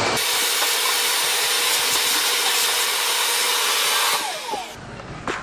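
Oscillating multi-tool cutting into drywall, a steady buzzing hiss with a faint steady tone under it, which dies away and stops about four seconds in.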